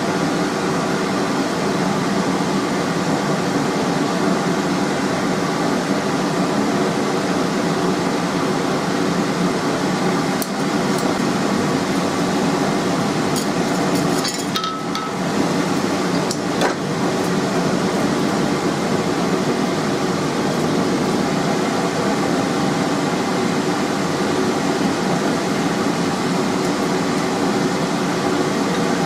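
Steady drone of a forge's electric air blower. A few sharp metal clinks from a hammer on the anvil come near the middle, one with a short ring.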